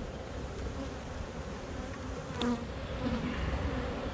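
Honey bees from an opened nuc hive buzzing steadily, with one brief sharp sound a little past halfway.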